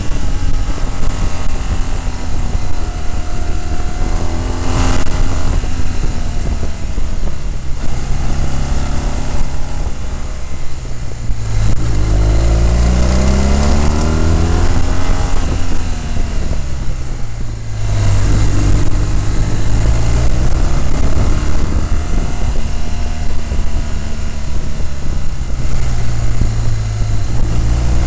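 Onboard sound of a motorcycle on the move: the engine note climbs and falls as the rider opens and closes the throttle, with one long rise in pitch about halfway through that then falls away, all under heavy wind buffeting on the microphone.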